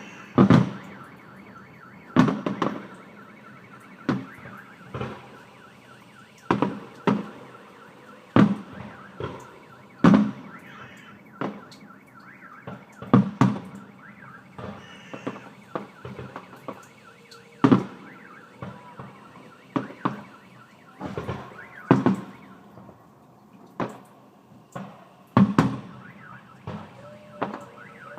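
Fireworks exploding nearby: a run of irregular sharp bangs, one every second or two, each trailing off in an echo.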